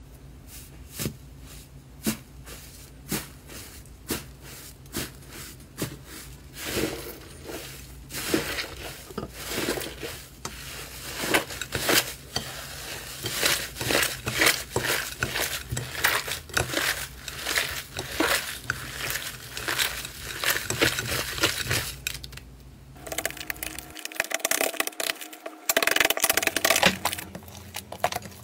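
Crumbly 'tofu dregs' slime being pressed, kneaded and pulled by hand, giving a run of small pops and clicks that starts sparse and becomes dense after the first few seconds.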